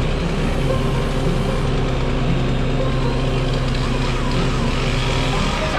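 Grapple truck's engine running steadily while its hydraulic grapple works a dug-out oak stump, with a faint whine wavering in pitch over it in the second half.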